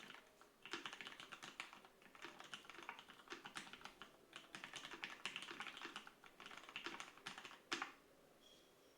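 Fast typing on an EO-87 mechanical keyboard with lubed vintage Cherry MX Black linear switches on a 5 mm acrylic plate: a dense, steady stream of keystrokes after a brief pause at the start. It ends on one louder keystroke near the end, after which the typing stops.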